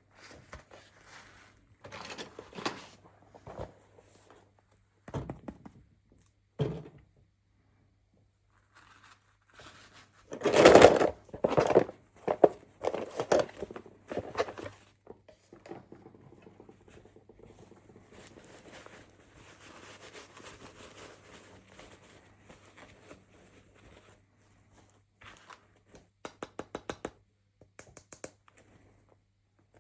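Toy packaging being unwrapped by hand: short bursts of crinkling and tearing with a few thunks. The loudest burst comes about a third of the way in, and there is a quick run of clicks near the end.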